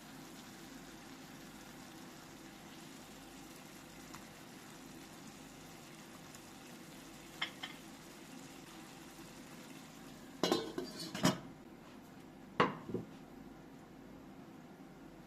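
Kitchen dishes and utensils clinking and clattering: two light clinks about halfway through, then a burst of clattering and a sharp knock near the end, over a steady low hiss.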